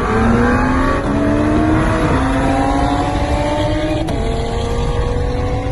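Car engine at full throttle heard from inside the cabin, its pitch climbing steadily with two quick upshifts, about two and four seconds in, each dropping the pitch before it climbs again.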